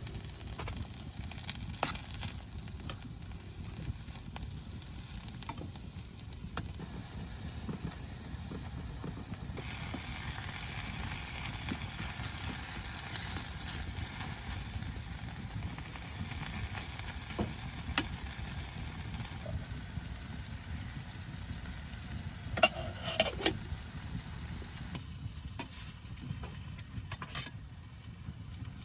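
Food sizzling in a pan on a wood stove, with scattered sharp crackles and a brief clatter about 23 seconds in; the sizzle is strongest between about 10 and 19 seconds.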